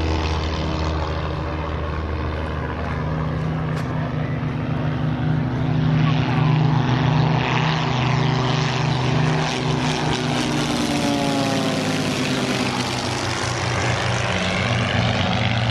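Formation of four propeller-driven piston-engine aircraft making a low pass: a steady multi-engine drone that grows louder about six seconds in, then its tones slide down in pitch as the planes go by, about two-thirds of the way through.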